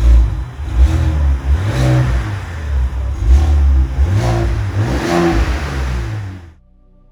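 Pickup truck engine revving in repeated surges with a heavy, deep rumble, cutting off abruptly near the end. Faint ambient music follows.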